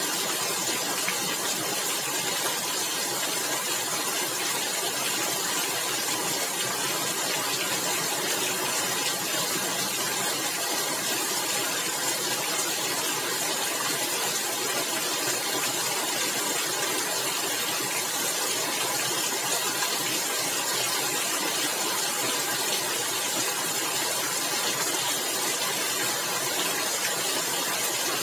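Rain falling steadily on a tiled roof: an even, unbroken hiss of many drops.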